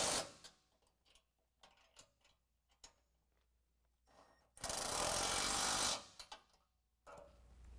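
Cordless impact driver with an 18 mm socket on an extension, running nuts down onto the rear bumper's bracket bolts at the frame horn. One burst cuts off just after the start and a second runs for about a second and a half past the middle, with faint clinks of the wrench and socket between.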